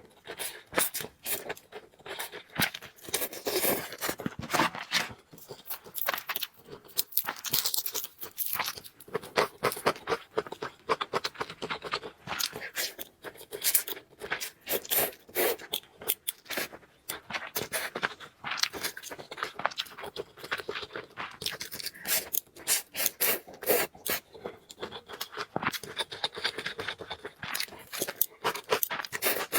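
Close-miked eating sounds of noodles being chewed and slurped, with many irregular sharp clicks and scrapes.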